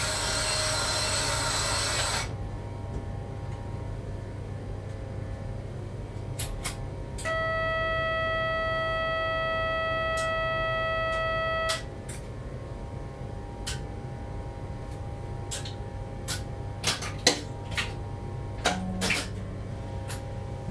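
Cab of a Z50000 electric multiple unit standing still, with a steady low hum from the train's equipment. A hiss runs for the first two seconds, a steady buzzer tone sounds for about four and a half seconds midway, and scattered clicks come near the end.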